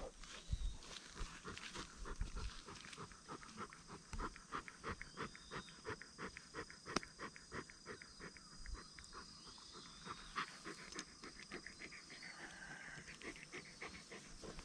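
Bernese Mountain Dog panting in a fast, even rhythm.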